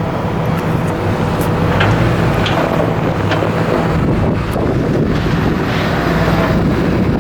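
Car driving along, with steady engine and road noise and wind buffeting the microphone. A few light clicks or rattles come through it.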